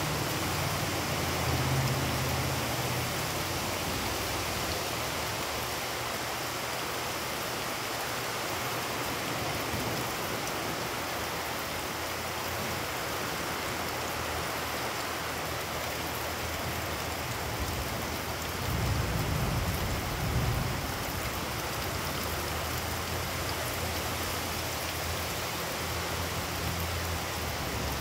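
Heavy rain falling steadily on wet pavement and standing water, an even hiss throughout. Low rumbles come through about a second in and again about two-thirds of the way through.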